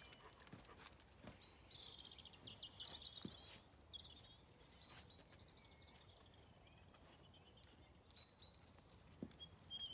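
Quiet outdoor ambience with faint birdsong: a few short chirping phrases about two to four seconds in and again near the end, and an occasional faint click.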